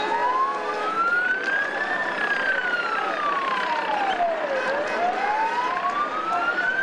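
Police vehicle siren on a slow wail: the tone rises for about two seconds, falls for about two and a half, then rises again, over a steady noisy street background.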